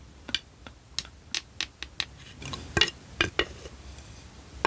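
ASMR tapping on small hard objects: a quick, irregular run of light, clicky taps and clinks, about a dozen of them, then a short pause and one more tap at the end.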